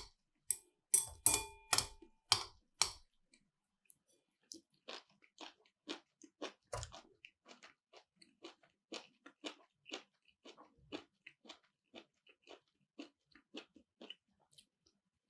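Close-miked chewing of chuka salad with nut sauce: a steady run of short, crunchy chews, about two a second. In the first three seconds there are a few sharp, louder clicks, some with a brief ringing tone.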